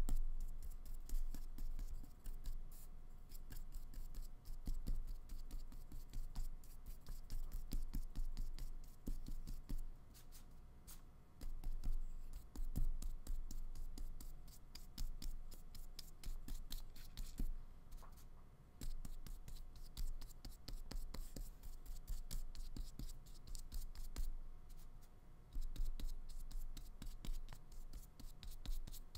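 Paintbrush bristles stroking acrylic paint onto the painting surface: a soft, scratchy rubbing repeated stroke after stroke at an uneven pace.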